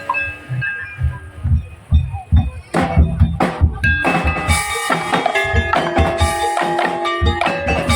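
Tongtek percussion ensemble playing: a steady beat of drums and bamboo slit drums, with tuned percussion ringing out a melody. For the first few seconds only sparse drum strokes are heard, then the full ensemble with its pitched notes comes in.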